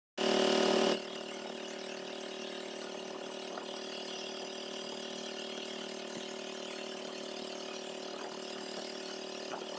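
Small motorized boat's engine running steadily at an even speed, a little louder for the first second.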